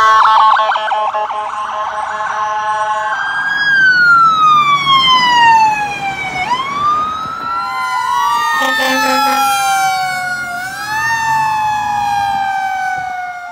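Emergency vehicle sirens: a fast warbling electronic siren gives way to long wailing glides that fall and rise, with two sirens crossing in pitch later on. A short horn blast sounds about nine seconds in.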